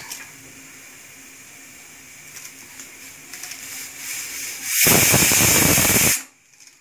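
Stainless steel pressure cooker on the boil, hissing softly with faint sputtering, then whistling: a loud blast of escaping steam for over a second that cuts off suddenly. The whistle marks the built-up pressure and counts toward the two whistles of cooking time.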